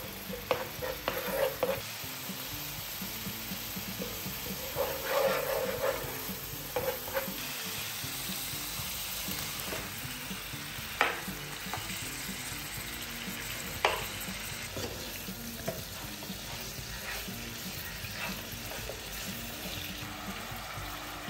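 Whole spices sizzling in hot oil in a nonstick frying pan, stirred with a wooden spoon that knocks and scrapes against the pan. About a third of the way in, raw chicken pieces go in and the sizzle gets stronger, with a few sharp spoon knocks as they are stirred.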